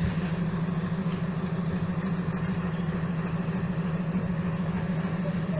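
Train's diesel engine running steadily at idle, an even low drone with a fast pulsing throb that neither rises nor falls.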